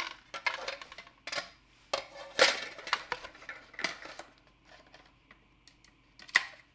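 Film reels and a film can being picked up and set down, a string of irregular clinks and knocks with two louder knocks, one about a third of the way in and one near the end.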